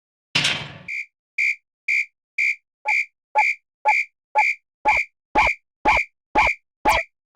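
A level-crossing alarm sound effect, a Japanese-style crossing bell: a short high electronic ding repeating about twice a second. A short noisy whoosh comes just before the first ding. Partway through, each ding is layered with a lower tone and then a low thud.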